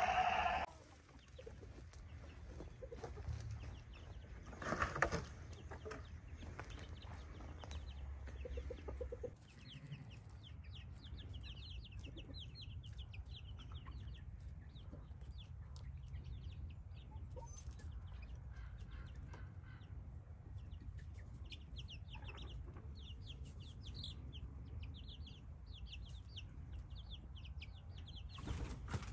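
Chickens in a pen: a few clucks in the first seconds, then young chicks peeping in many quick, thin high cheeps from about ten seconds in.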